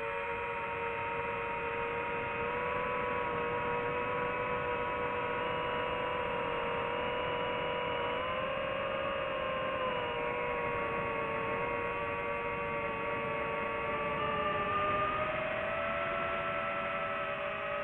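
DJI FPV drone's motors and propellers whining steadily as it flies, a stack of tones that drift slowly up and down in pitch and spread apart near the end.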